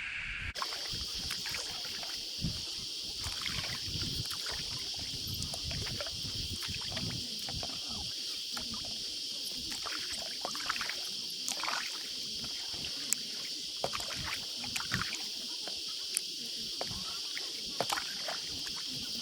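Paddleboard on the water: the paddle splashing and water lapping, with scattered small knocks, over a steady high-pitched hiss.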